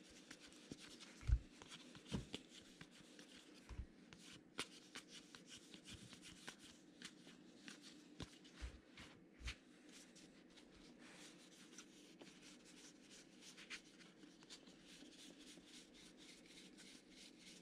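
Faint rustling, sliding and flicking of baseball trading cards being handled and leafed through, with many small ticks and a few soft bumps in the first ten seconds.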